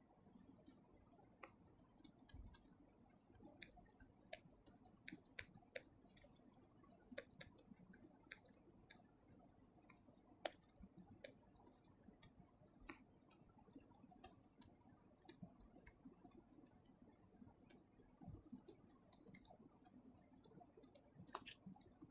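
Near silence, broken by faint, irregular clicks and taps from a pen on a writing surface as a circuit diagram is drawn by hand. The sharpest click comes about ten seconds in.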